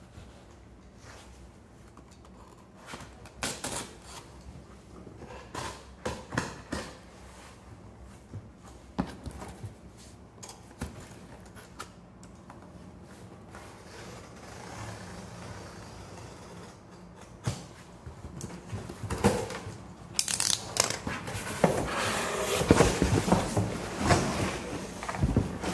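An Amazon cardboard shipping box being opened by hand with a thin tool: scattered clicks and scrapes of the tool on the tape and cardboard. About two-thirds of the way through, this gives way to a denser, louder scraping and rustling of cardboard as the box is worked open.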